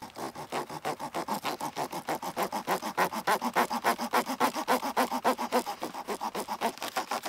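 Small hand saw cutting a rounded notch into a small wooden board made from a branch: quick, even back-and-forth rasping strokes.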